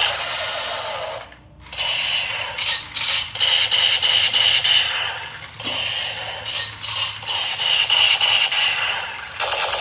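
Battery-powered toy revolver's electronic firing sound effect from its built-in speaker, a rapid pulsing buzz as the bullet cylinder turns. It plays in repeated bursts, cutting out briefly about a second and a half in.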